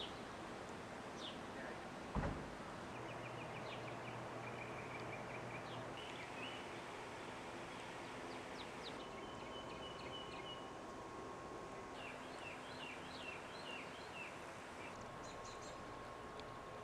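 Small birds chirping and trilling in short repeated phrases over steady outdoor background noise, with a single sharp thump about two seconds in and a faint steady hum joining about halfway.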